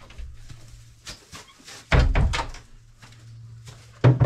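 A plastic bucket and wooden boards being handled: a cluster of clattering knocks about two seconds in, then one loud knock near the end, over a steady low hum.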